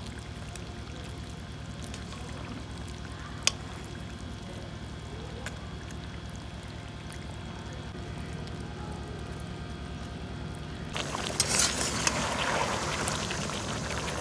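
A steady low rushing, with one sharp click about three and a half seconds in. About eleven seconds in, loud sizzling and scraping starts as the tomatoes are pressed and stirred into the chicken in the hot oil of the wok.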